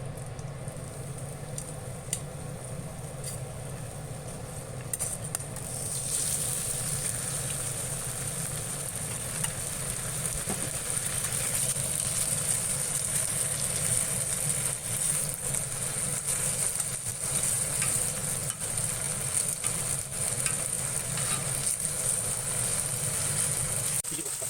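Stir-fry sizzling in a frying pan, with light knocks and scrapes of stirring. The sizzle gets louder about six seconds in and then holds steady over a low hum.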